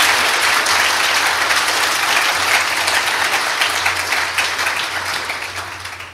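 Congregation applauding with many hands, dying away toward the end.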